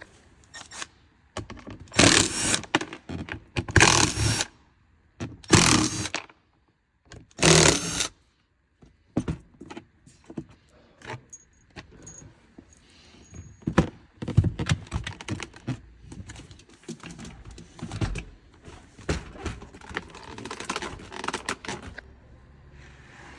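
Plastic and metal clicking, rattling and scraping as parts of a car door are worked loose by hand. There are three or four loud rattling bursts in the first eight seconds, then a long run of lighter, irregular clicks.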